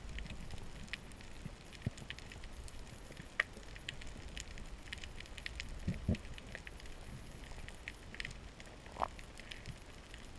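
Underwater reef ambience heard through a camera housing: a constant crackle of sharp clicks from snapping shrimp over a low rumble of water, with a few louder knocks.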